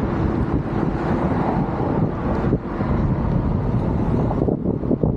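Wind buffeting the microphone of a bike-mounted action camera while riding a road bike: a steady, dense low rushing noise.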